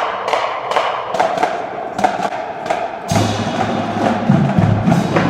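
Marching band percussion: a quick run of sharp wooden stick clicks. About three seconds in, low drum or bass tones join in a pulsing rhythm.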